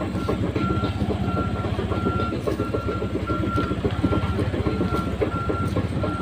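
Excavator diesel engine running steadily, with its warning alarm beeping at one pitch about three times every two seconds while the machine moves.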